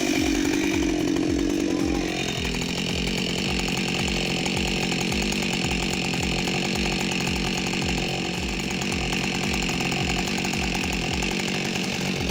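Chainsaw running at high revs, held steady as it cuts into a large tree stump, with a slight change in pitch about two seconds in.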